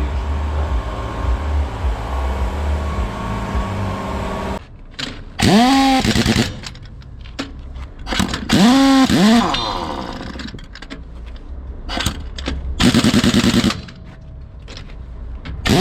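Machinery at a tyre-fitting bay: a steady mechanical hum for about four and a half seconds, then short whirring bursts that rise and fall in pitch, about three times, and a rapid rattling burst near the end, like pneumatic tools spinning up and hammering.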